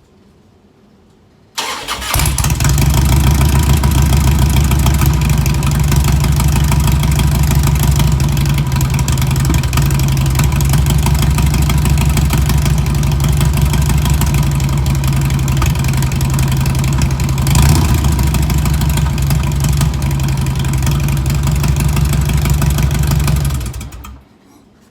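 2003 Harley-Davidson Road King's Twin Cam 88 V-twin, breathing through newly fitted Rinehart slip-on mufflers, starting abruptly about one and a half seconds in and then idling steadily. There is one brief louder moment about two-thirds of the way through, and the engine shuts off shortly before the end.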